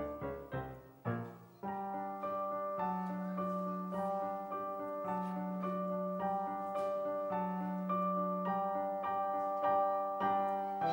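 Piano music: a falling run of notes dies away. About a second and a half in, a slow repeating figure starts over a held low note.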